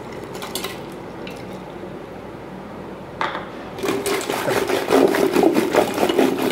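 A few faint clicks of ice cubes going into a steel pot. From about four seconds in, a wooden churning stick is spun fast through iced yogurt and milk in the pot, with a loud rapid rattling and sloshing against the metal.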